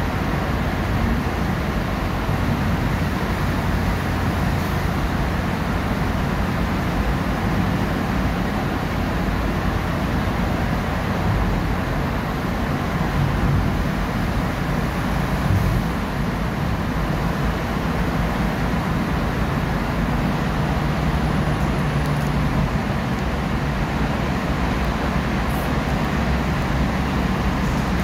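Steady road noise of a car driving through a road tunnel, heard from inside the cabin: a low, even rumble of tyres and engine.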